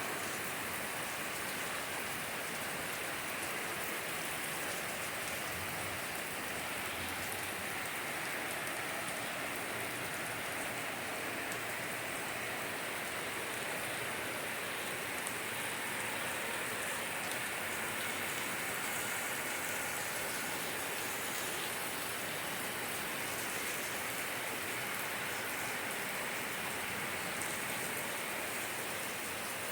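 Steady rainfall, an even hiss of drops on leaves and ground with no let-up.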